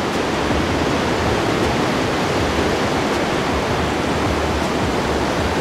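Mountain river rapids rushing, a steady roar of whitewater; the river is running very high. Raging rapids.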